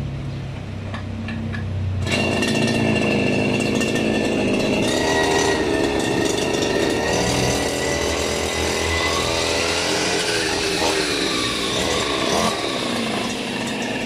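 Small petrol engine of a brush cutter (grass cutter) ticking over, then revved up about two seconds in and held at high speed with its pitch wavering, driving a rice-harvester cutting head; it eases off near the end.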